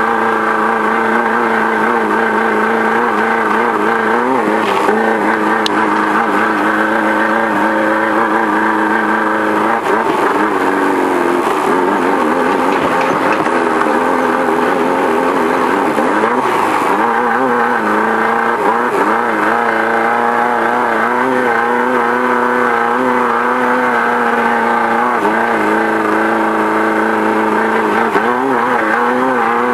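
Engine of a Beetle-based desert off-road race car running hard under way, heard from inside the car, its pitch repeatedly dipping and rising as the throttle and gears change over rough ground, over steady road and wind noise.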